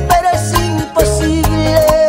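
Instrumental passage of a bachata song: a melodic lead line over a steady bass and evenly spaced percussion strokes, with no singing.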